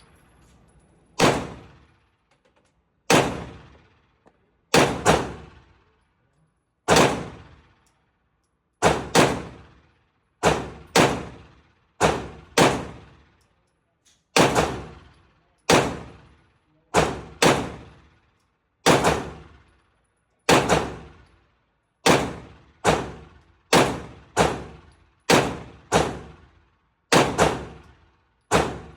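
Springfield Prodigy 9mm pistol firing 115-grain rounds at a steady, uneven pace, about one shot a second, sometimes in quick pairs. Each shot has a short echo from the indoor range.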